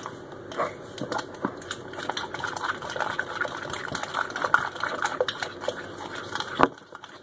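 A utensil beating wet batter ingredients in a bowl, clicking and tapping against the bowl's side in quick, irregular strokes, with one sharper knock against the bowl near the end.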